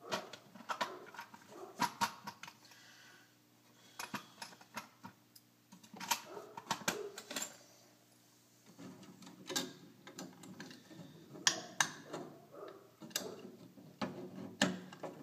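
Screwdriver working the reset mechanism of a fire alarm pull station: irregular clicks, scrapes and knocks of the tool and the station's parts, coming in loose clusters.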